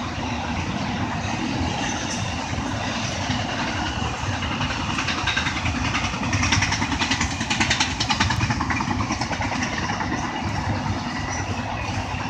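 Intermodal freight train's cars rolling past: a steady rumble of steel wheels on the rails, with a stretch of rapid rattling clicks about midway.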